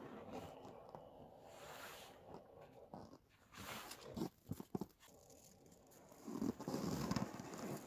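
Rustling of padded winter clothing and crunching snow as a person shifts about lying under an ATV, with a few sharp knocks about four to five seconds in and louder rustling near the end.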